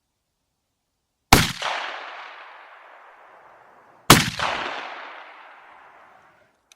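Two shotgun shots from a Beydora BDR-90, about three seconds apart, each followed by a long echo dying away.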